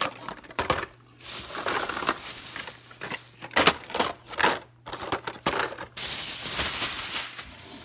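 Carded Hot Wheels cars in plastic blister packs being handled and shuffled: plastic and cardboard rustling, crinkling and clacking in irregular bursts, with a longer stretch of continuous rustling near the end.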